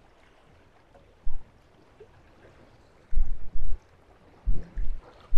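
Wind buffeting the microphone on a small boat at sea: short low rumbling gusts, one about a second in and longer ones around three and four and a half seconds in, over a quiet background.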